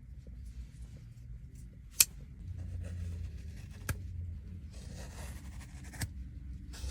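A folding pocket knife being handled over a low steady hum: one sharp, loud click about two seconds in, then two fainter clicks a couple of seconds apart, with light rustling between them.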